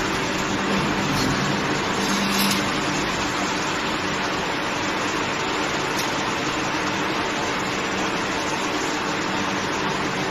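Aluminium profile extrusion press running, its hydraulic power unit giving a steady hiss with a constant low hum underneath.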